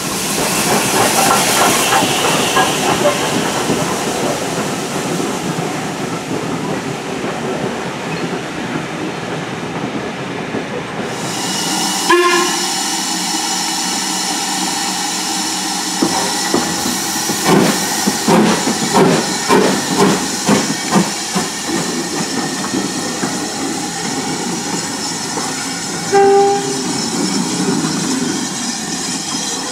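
LMS Ivatt Class 2MT 2-6-2T steam tank engine 41241 running past, then hissing steam as it moves slowly round its train. Around two-thirds of the way in there is a run of exhaust beats, about two a second, as it works. There are also two short whistle notes, one about twelve seconds in and one near the end.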